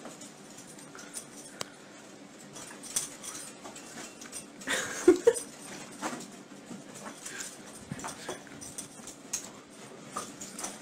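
Small dog giving a few short whimpers, loudest about five seconds in, over light scuffling as it plays.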